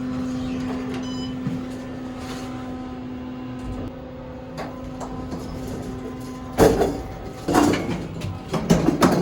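A steady mechanical hum that cuts off about two-thirds of the way through, followed by three loud bursts of knocking and clatter.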